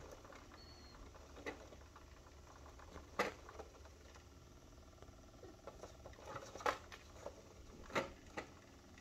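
Scattered light taps and knocks from a kitten playing and moving about in a wire crate, the loudest about three seconds in and twice near the end.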